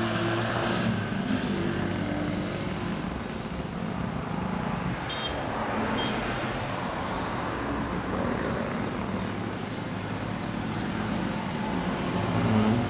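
Steady rushing background noise with a low hum underneath, and no speech.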